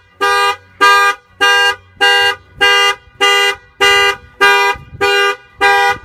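Factory alarm of a 2015 Mercedes-Benz CLA 250 sounding the car's horn in about ten even honks, a little under two a second. The alarm was tripped by a newly added shock sensor when the tires were kicked.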